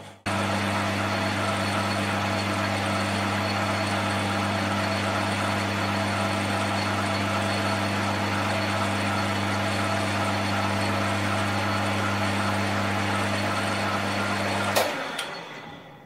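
Metal lathe running steadily with a low motor hum while the cutting tool faces the end of a cast iron slug. About 15 seconds in there is a sharp click and the lathe runs down and stops.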